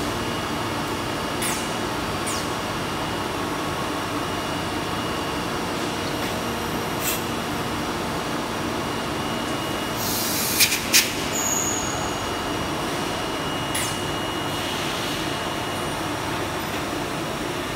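Steady running noise of a factory floor, with a few light clicks and a pair of sharp knocks about ten and a half seconds in.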